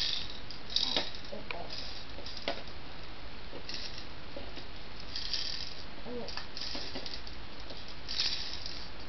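Baby's plastic rattle toy shaken in short bursts every second or so, with a few light plastic clacks from toys being handled.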